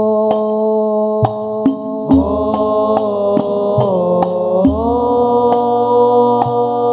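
Boys' hadrah Al-Banjari group singing a sholawat together, holding long notes that slide to new pitches twice, over a steady run of sharp terbang frame-drum strokes.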